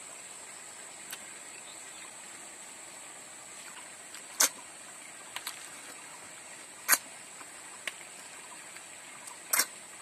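Short, sharp sucks as cooked snails are slurped out of their shells and eaten by hand, about five times in the second half, the loudest near seven and nine and a half seconds. A steady high thin whine, like insects, runs behind.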